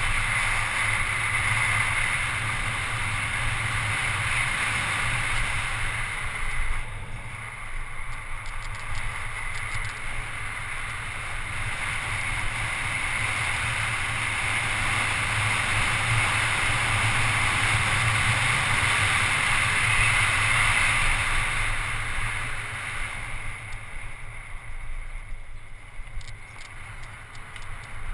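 Wind rushing over a GoPro HD camera on a mountain bike speeding down an asphalt road, with low tyre rumble. The rush eases off twice, about seven seconds in and again near the end.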